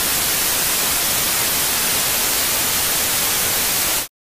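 Loud, steady TV-static hiss used as a sound effect, cutting off abruptly near the end into silence.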